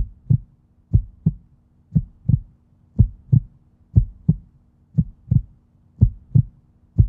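Heartbeat-like low double thump, 'lub-dub', repeating about once a second over a faint steady low drone: a soundtrack pulse, not machinery.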